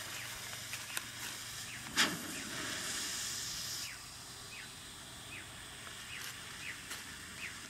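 Green smoke firework igniting: a sharp pop about two seconds in, then a loud hiss of smoke jetting out for about two seconds, settling to a quieter hiss.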